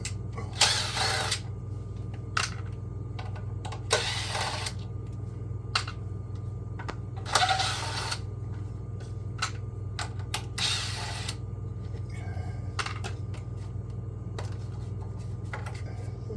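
Hand tools and parts clicking and clattering on a portable generator as it is taken apart, with four short rasping strokes a few seconds apart, over a steady low hum.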